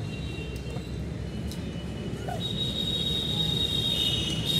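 Steady low rumble of traffic on the overhead flyover. A thin, steady high-pitched tone joins about halfway through.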